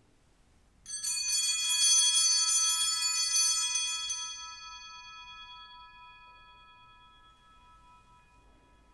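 Altar bells rung at the elevation of the chalice during the consecration: a quick, rapidly repeated ringing for about three seconds from about a second in, then the high bright tones ring out and fade slowly.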